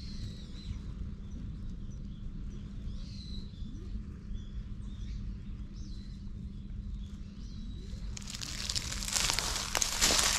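Small birds chirping faintly over a low steady rumble. About eight seconds in, dry fallen leaves start crunching and crackling loudly, footsteps on the leaf litter, loudest near the end.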